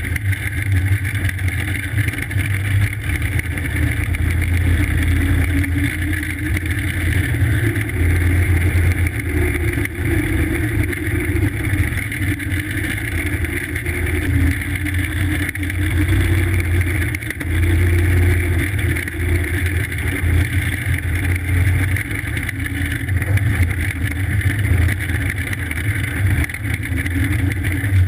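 Go-kart engine running steadily while driving, its pitch rising and falling a little as the throttle changes.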